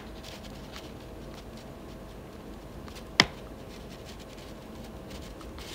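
Low room noise with a faint steady hum during a pause in the talk, broken by two sharp clicks: one right at the start and a louder one about three seconds in.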